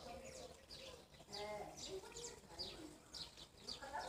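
Faint bird chirping: short high notes sliding downward, repeating about three times a second.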